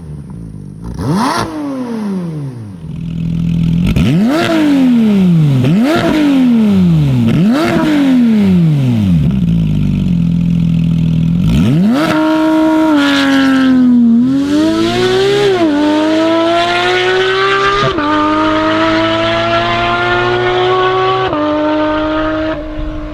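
Porsche 992 GT3's 4.0-litre flat-six through an iPE valved stainless-steel full exhaust, revved sharply several times so the pitch jumps up and falls straight back. About twelve seconds in it pulls hard at high revs, climbing in pitch with sudden drops between steps, like upshifts under full acceleration.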